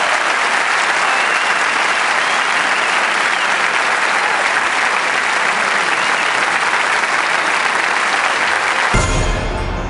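Large audience applauding steadily. About nine seconds in, the applause cuts off abruptly and music with heavy bass starts.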